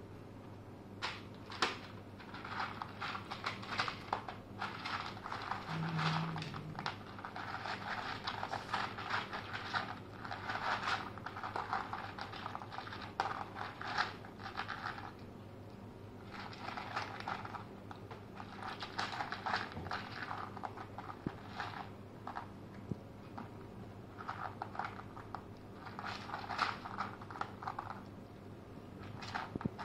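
Two kittens crunching dry kibble, in bouts of rapid crisp crackling a few seconds long with short pauses between.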